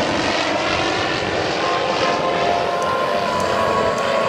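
Aircraft of a P-51 Mustang and F-22 Raptor heritage flight passing, a steady, loud rush of engine noise with a thin steady whine coming in about halfway.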